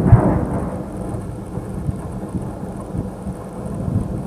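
Rocket warheads detonating on impact: one more sharp blast right at the start, then a long, low rolling rumble that echoes across the range and slowly dies away, swelling a little again near the end.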